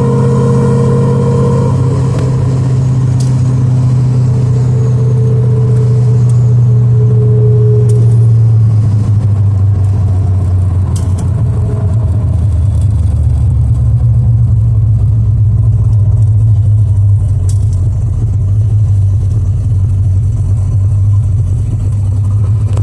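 Car engine and drivetrain running with a steady low drone, the engine note dropping slightly about eight seconds in, with the transmission under control of a newly fitted Quick 4 controller for a 4R70W automatic.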